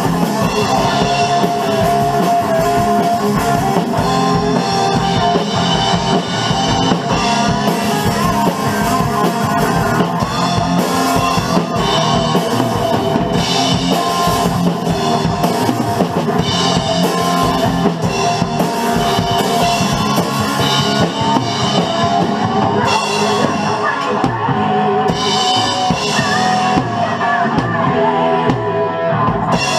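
Acoustic drum kit played hard, with cymbals, snare and bass drum, along with a hard rock recording of electric guitars and singing.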